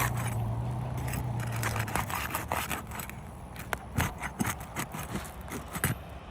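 Scraping and sharp clicks from a pry tool being worked under asphalt roof shingles to break their seal. A steady low hum runs under it for about the first two seconds, then fades.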